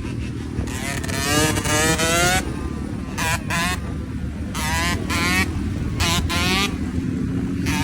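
Yamaha YZ125 single-cylinder two-stroke engine revving hard in several bursts, its pitch climbing on each and dropping back between them.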